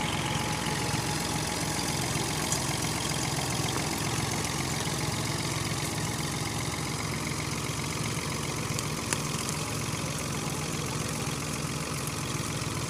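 Fiat 480 Special tractor's three-cylinder diesel engine running steadily with an even, pulsing low rumble while the tractor strains on a chain to pull a tree out.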